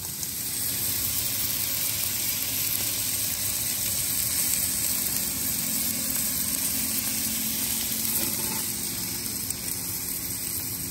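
Ribeye steaks sizzling steadily on the grates of a portable gas grill, topped with herb garlic butter.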